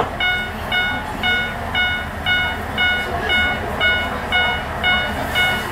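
Railway level-crossing warning bell clanging evenly about twice a second, over the low running of a Tenryu Hamanako Railroad TH2100-series diesel railcar pulling into the platform.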